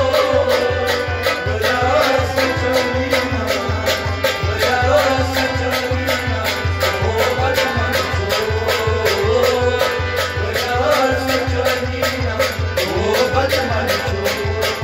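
Kashmiri folk ensemble playing: harmonium melody with plucked strings over a fast, steady beat on a clay-pot drum.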